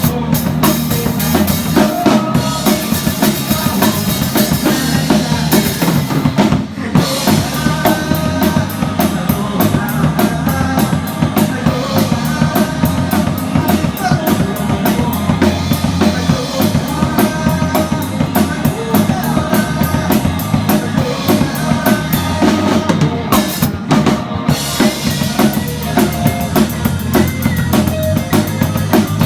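A live band playing loud music with the drum kit close up and dominant: fast, dense kick, snare and cymbal hits over the other instruments, with a brief break about seven seconds in.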